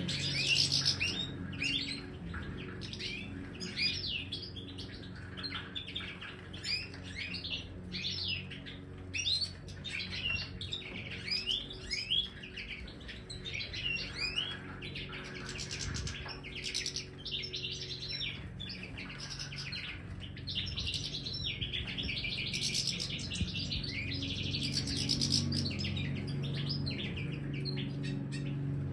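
A flock of European goldfinches twittering and chirping, short calls and trills overlapping in quick succession, over a steady low hum.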